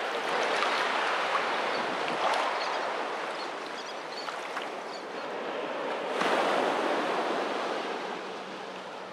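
Small waves washing up the beach, a thin sheet of water rushing over the sand. It comes in two surges: the second starts suddenly about six seconds in, then fades.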